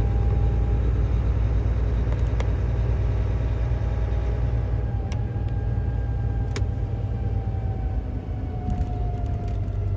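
Semi truck's diesel engine and road noise heard inside the cab while driving: a steady low rumble, with a faint whine slowly falling in pitch through the second half and a few sharp clicks.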